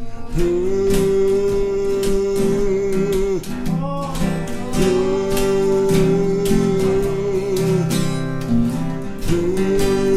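Acoustic band music: two strummed acoustic guitars over an acoustic bass line, with long held melody notes over the strumming, playing an instrumental break between sung lines.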